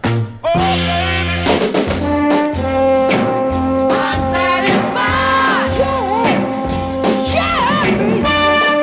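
Soul record in an instrumental passage: a few short stop-start stabs, then a horn section holding long notes over bass and drums, with some bending notes from about five seconds in.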